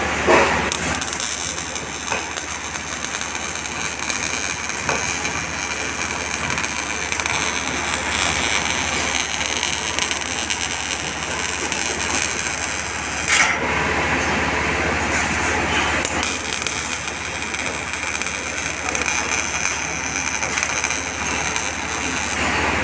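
MIG welding arc crackling and sizzling steadily over a low electrical hum, with a brief break about 13 seconds in.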